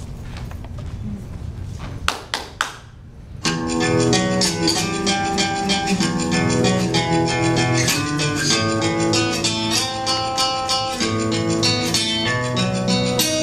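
Low room noise with three sharp knocks, then flamenco-style guitar music starts suddenly about three and a half seconds in and plays on with quick plucked notes.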